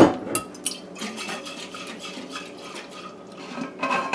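Glass marinating jar handled on a kitchen countertop: a sharp knock of glass against the counter at the start, then light clinks and taps of glassware and utensils, with another short clatter near the end.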